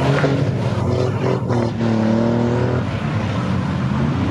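Pickup truck engines revving hard while their wheels spin through deep mud, the engine pitch rising and falling several times.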